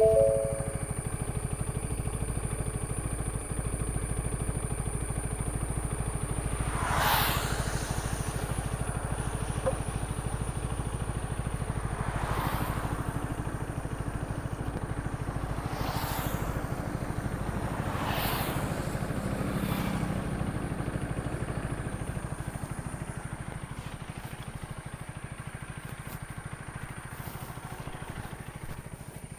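KTM Duke 250's single-cylinder engine running steadily while riding, with several brief rushing swells about 7, 12, 16 and 18 seconds in. It gets gradually quieter over the last several seconds.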